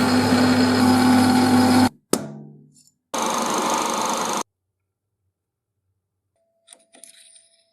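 A power tool runs in short bursts that start and stop abruptly. About two seconds in there is a sharp click followed by a fading run-down. A silent gap follows, then a few faint clicks near the end.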